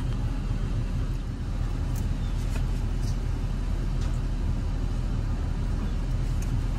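Dually pickup truck's engine idling, a steady low hum heard from inside the cab, with a few faint light clicks.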